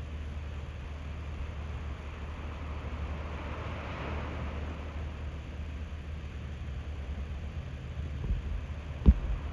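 Small, calm Atlantic surf washing on the beach: a steady hiss of water that swells with one wave about three to four seconds in, over a constant low rumble. A sharp knock near the end.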